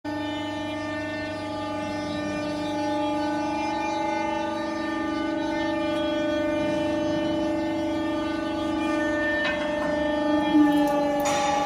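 Rebar cutting machine's electric motor and hydraulic pump running with a steady pitched hum that dips slightly in pitch shortly before the end. A few sharp metallic clicks follow as a bar is worked at the cutting jaws.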